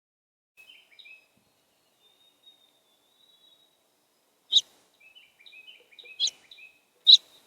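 Songbirds at feeders calling: soft, quick chirps and a faint thin whistle, broken by three loud, sharp calls in the second half.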